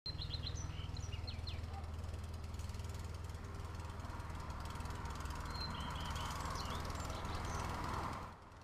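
Outdoor ambience: a low steady hum, with a few short high bird chirps near the start and again about six seconds in. The sound cuts off suddenly shortly before the end.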